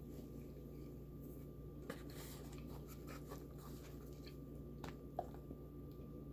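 Faint mouth sounds of chewing a Big Mac burger: soft wet clicks and crackles at irregular moments, the sharpest click about five seconds in, over a steady low hum.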